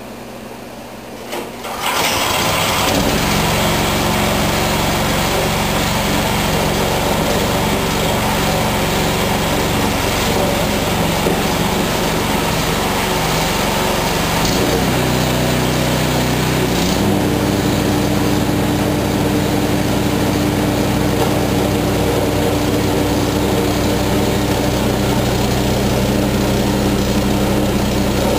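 A snowblower's newly installed 16 hp PowerMax engine starts about two seconds in and runs steadily at its governed speed, set to the factory specification of 3600 rpm. Its note shifts partway through, once around the middle and again a few seconds later.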